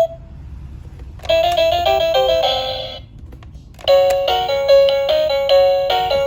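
Electronic toy speaker playing simple beeping melodies: a short jingle about a second in, a brief pause, then a longer tune starting near the middle. They are the built-in sounds of the Edu Fun Animal monkey learning toy.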